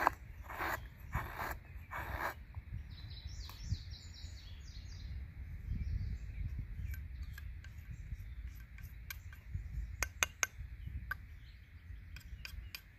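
A wooden fire-starter stick being split into thin slivers: a few rasping strokes in the first two seconds, then a scatter of small sharp cracks and snaps in the second half. A bird chirps briefly about three to five seconds in.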